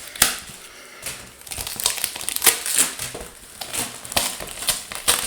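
Crinkling and crackling of the packaging on trading-card multipacks as it is handled and pulled open, in irregular bursts of rustles and sharp crackles.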